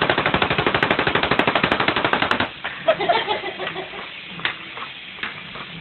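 Battery-operated toy soldier's machine-gun sound effect: a fast, loud electronic rattle that stops about two and a half seconds in, followed by scattered clicks.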